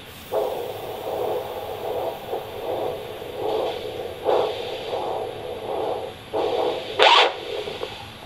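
Handheld Doppler ultrasound unit playing the brachial artery pulse of a patient with a left ventricular assist device through its speaker: a subdued, alternating whooshing over static hiss, about two pulses a second. A louder scratchy burst comes about seven seconds in.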